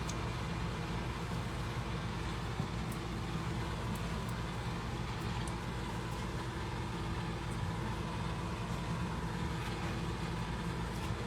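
A motor running steadily: an even low hum that does not change, with a few faint clicks.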